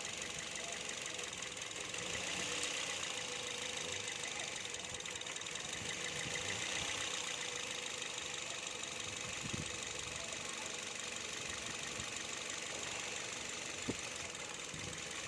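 A Toyota Vios engine idling steadily with a fast, light, even ticking, and a single sharp click near the end.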